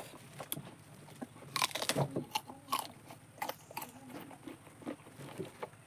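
Fresh tamarind pods being eaten: crisp crunches, loudest in a cluster about a second and a half in, then scattered smaller crunches as the mouthful is chewed.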